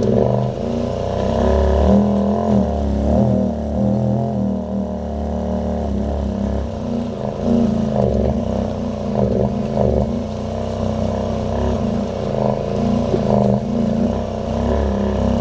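Honda side-by-side UTV engine running under load as it crawls up a steep rocky trail, its pitch wavering up and down with the throttle over a steady low rumble.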